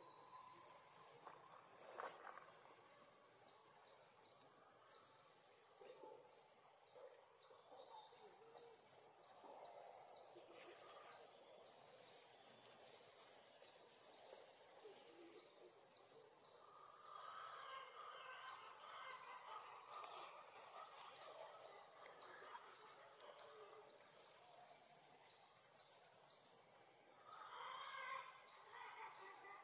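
Faint outdoor ambience: a small creature's high chirp repeating about twice a second, with softer chirps and calls breaking in around the middle and near the end.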